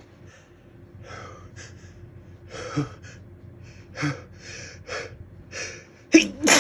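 A person gasping in a string of short, catching breaths as a sneeze slowly builds, then two sharp, loud bursts near the end as the sneeze breaks.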